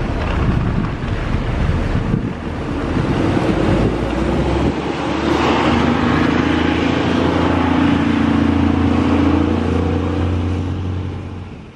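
Boeing 787 jet engines at taxi power, a steady rumble with a droning hum from about five seconds in. It fades out near the end.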